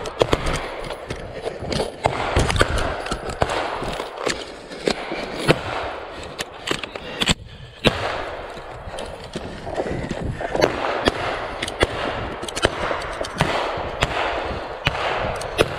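Rifle fire from several soldiers: irregular single shots and short strings of shots, over the rustle and clatter of the helmet-camera wearer's own movement through the undergrowth. There is a brief lull about seven seconds in.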